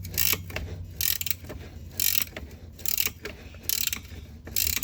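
Ratchet wrench clicking in short bursts about every three-quarters of a second as it is worked back and forth. It is loosening a rusted bolt that turns freely after induction heating.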